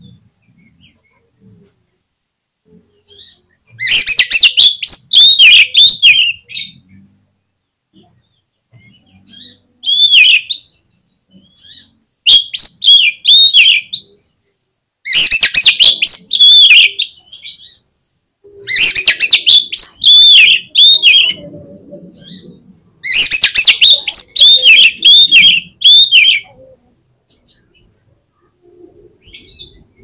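Oriental magpie-robin (kacer) singing loud phrases of quick, swooping whistled notes. There are six phrases of one to three seconds each, with short pauses between them.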